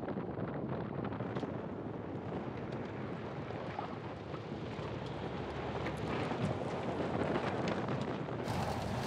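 Wind buffeting a microphone mounted on the outside of a Mercedes-Benz GLC SUV as it drives fast over a dirt track, with the tyres rumbling on loose dirt and gravel and many small sharp ticks.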